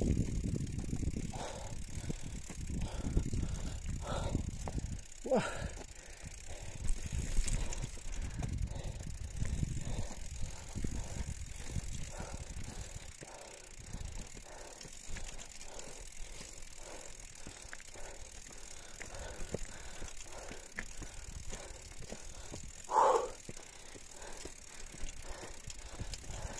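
Mountain bike riding up a rocky gravel trail: tyres crunching over loose stones and the bike rattling, with a steady pulse about twice a second. Two brief falling-pitch sounds, one about five seconds in and a louder one near the end.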